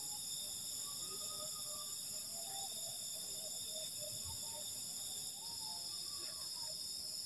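Steady, high-pitched chorus of crickets and other night insects, with a few faint wavering calls lower in pitch.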